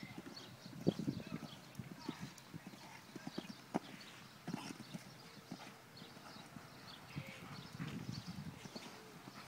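Hoofbeats of a horse cantering on a sand arena floor, a run of soft, uneven thuds with a few sharper knocks, taking a show jump along the way.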